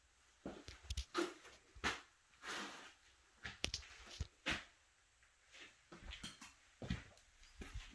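Faint, irregular footsteps and scuffs on a concrete basement floor: about a dozen soft knocks and shuffles at uneven spacing.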